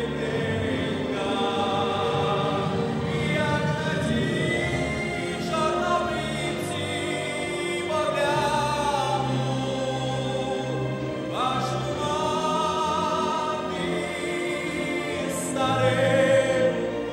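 A male solo singer singing into a handheld microphone over musical accompaniment, holding long notes with vibrato.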